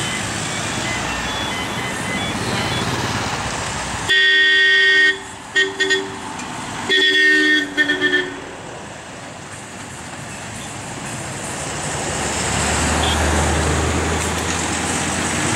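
Heavy goods lorries' diesel engines running at a hairpin bend, with a truck horn sounding from about four seconds in: a long blast, two short toots, a second blast and a quick run of toots ending about eight seconds in. Near the end a deep lorry engine rumble grows louder as a truck pulls close.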